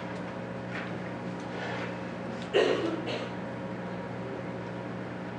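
Steady low electrical hum through a PA system, with a brief bump about halfway through and a smaller one just after.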